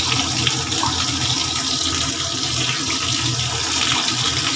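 A wok of curry cooking on the stove: a steady hiss and rush with a low rumble underneath.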